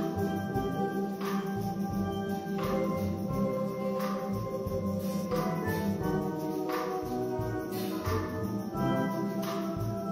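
Steel band playing a tune on many steelpans together, ringing pitched notes layered over one another, with a regular percussion hit about every second and a half.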